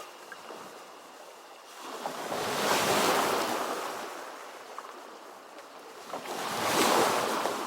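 Ocean waves breaking and washing on a shore, two waves swelling and falling away, the first peaking about three seconds in and the second near the end.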